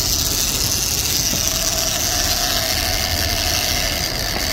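Sport-fishing boat's engines running steadily under way, with the rush of water in the wake. A steady hum joins in about a second in.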